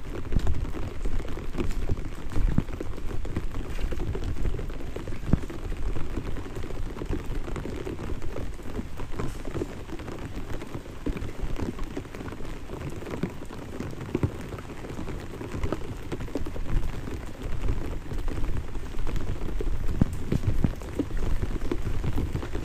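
Light rain drizzling, a steady dense patter of many small drops.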